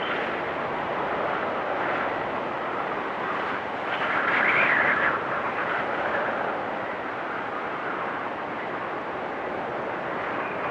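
Storm wind blowing steadily, with a louder whistling gust about four seconds in.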